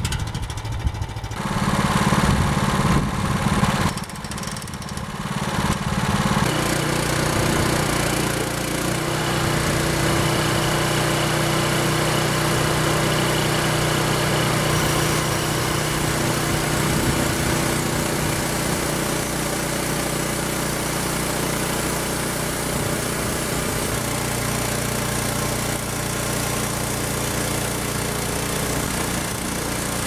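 The 15-horsepower petrol engine of a homemade band sawmill runs under load as the band blade cuts through a large log. The sound is uneven for the first six seconds or so, then holds a steady pitch.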